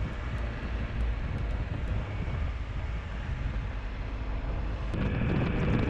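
Motorcycle engine running low and steady at slow riding speed. About five seconds in, engine and wind noise grow louder as the bike speeds up out of the turn.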